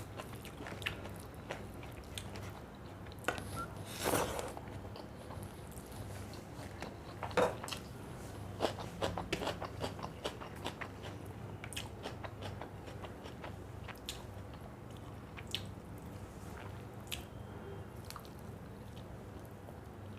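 A person eating a meal of fish curry and rice close to the microphone: chewing with scattered wet mouth clicks and smacks at irregular intervals, a few louder ones about four and seven seconds in.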